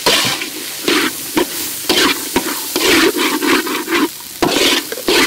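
Metal spatula scraping and turning diced sausage, corn and egg around a hot wok, with repeated scraping strokes about every half second over the sizzle of frying oil.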